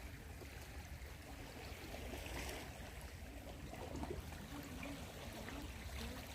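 Water trickling and lapping, with a steady low rumble underneath.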